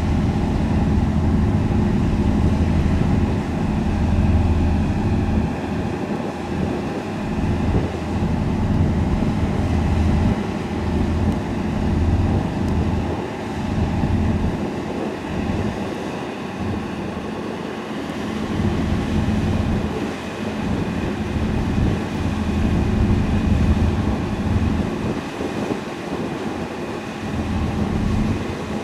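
Steady drone of a river motor ship's diesel engines under way, a hum of several steady tones over a constant noise, with an uneven low rumble.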